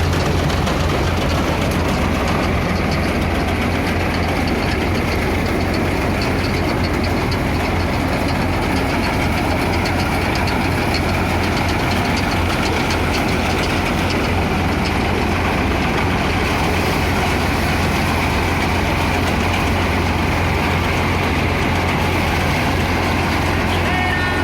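Eicher tractor's diesel engine running at a steady speed while it drives a tractor-mounted mini combine harvester cutting soybeans: one even, unchanging drone.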